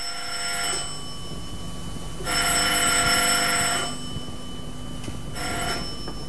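Landline telephone bell ringing in rings about a second and a half long with pauses between them. A last, brief ring cuts off near the end as the handset is picked up.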